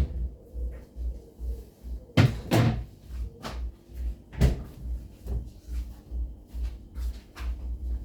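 Kitchen knocks and bangs, a pair close together about two seconds in and another about four and a half seconds in, over a steady low thumping two to three times a second.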